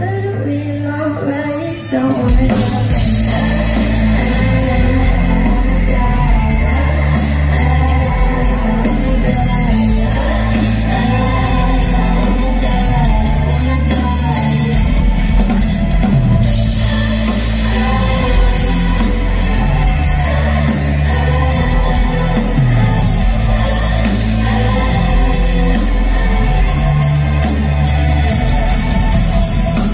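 Live pop-punk band of drums, electric guitar and bass playing loudly, with a woman singing over it. The full band comes in about two seconds in after a quieter opening.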